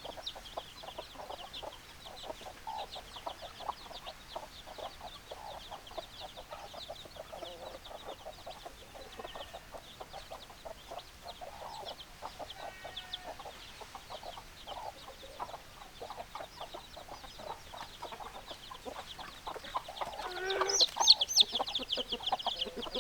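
Flock of chickens clucking continuously, with high chirping throughout. A louder, longer call stands out near the end.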